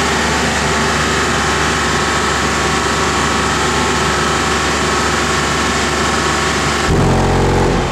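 Vehicle engine idling steadily; about seven seconds in, a one-second bass tone burst, an SPL 'burp' from two DD Audio 9918 18-inch subwoofers, comes in loud with buzzing overtones and cuts off.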